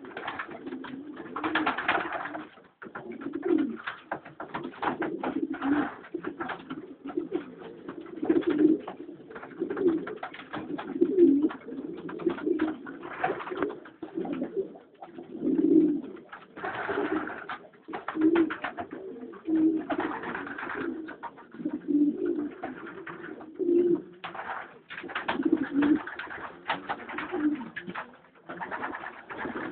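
Domestic pigeons in a loft cooing over and over, a low coo every second or two, overlapping, with noisier bursts between the coos. The cooing is cock pigeons courting the hens as pairs are put together.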